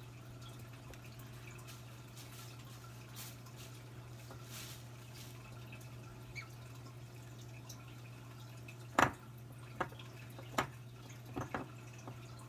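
A low steady hum, with a handful of short sharp clicks or taps in the last few seconds, the loudest about nine seconds in.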